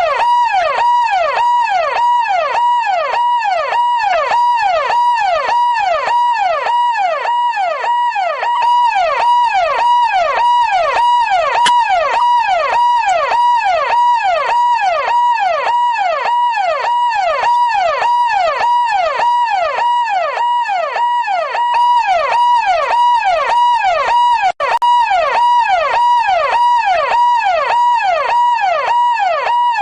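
Electronic siren sounding a fast yelp, its pitch sweeping up and down about twice a second over a steady pulsing tone. It cuts out for a moment about three-quarters of the way through.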